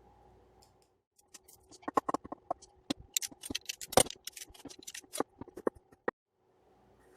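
Quick, irregular clicks and knocks of kitchen food preparation, with one louder knock about four seconds in; they stop about six seconds in.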